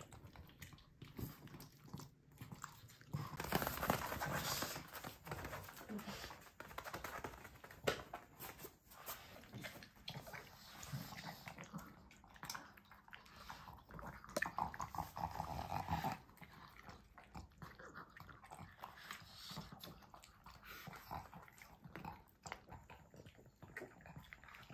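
Two dogs, a pug and a Pekingese, eating beef from raised bowls: steady wet chewing, licking and small clicks of teeth and food against the bowls, louder in two short stretches.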